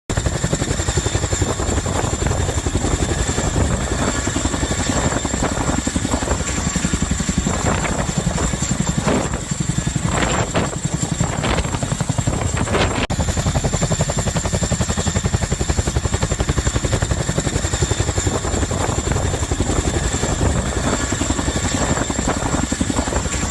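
Helicopter running overhead: the rotor's rapid, even chop over a steady turbine whine.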